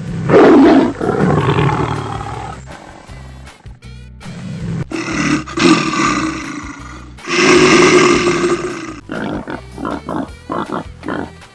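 An animal roaring, three long calls in a row, over background music that carries on alone near the end.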